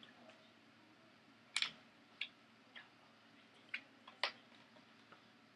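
Faint, scattered sharp clicks and taps, about six over the few seconds, against quiet room tone.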